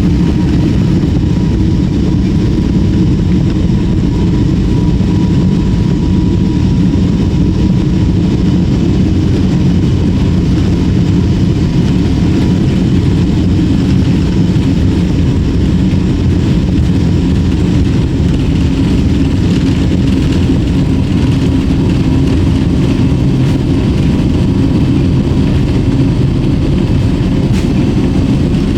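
Jet airliner cabin noise at a window seat: a steady, loud rumble of engines and airflow, with a faint steady whine.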